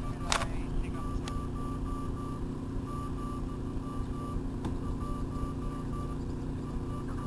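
Faint beeping at one steady pitch, keyed on and off in short and long tones like a Morse code beacon, over a steady low hum and wind rumble on the microphone. A brief click sounds just after the start.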